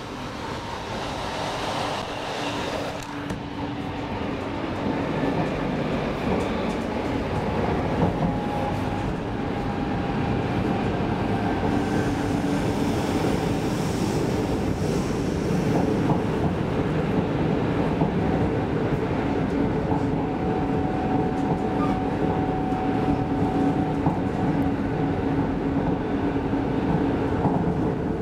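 Interior running noise of an X10 electric multiple unit commuter train moving along the track, heard from inside the passenger car. It grows louder over the first few seconds, then holds steady.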